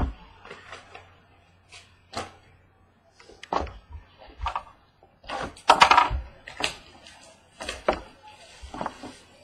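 Trading-card mini boxes handled on a table: scattered knocks and clicks as the boxes are picked up and set down, with a longer, louder scraping rustle about six seconds in.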